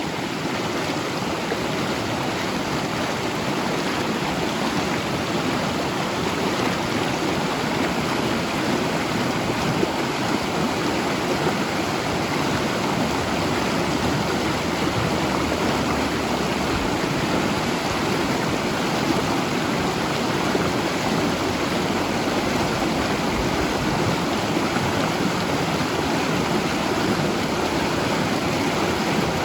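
Mountain river flowing over rocks, a steady rushing and burbling of water.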